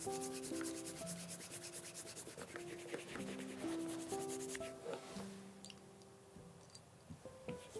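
A chamois cloth rubbing wax polish and a little water into the calfskin toe of a leather shoe in quick small circles. It makes a soft, rapid swishing of many strokes a second that fades out about five seconds in. This is the wax-and-water stage of building a high shine, and quiet background music with held notes plays underneath.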